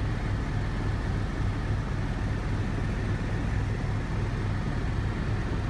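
Helicopter cabin noise in flight: a steady, loud low hum from the rotor and engine, with a faint steady high tone above it.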